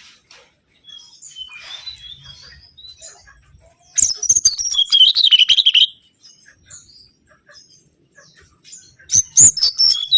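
Mangrove whistler song: two loud bursts of rapid, gliding whistled notes, one about four seconds in and another near the end, with faint scattered chirps between them.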